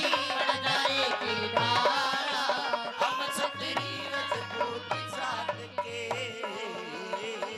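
Live Indian folk music: a hand drum keeping a quick, steady beat under a melody instrument, as the accompaniment to a dance on stage.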